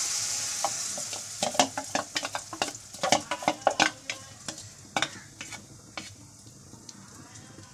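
Masoor dal and egg batter sizzling as it is poured into hot mustard oil in a kadai, a loud hiss that fades away. From about a second and a half in, a run of sharp clicks and scrapes comes in as the batter is scraped out of the bowl over the pan.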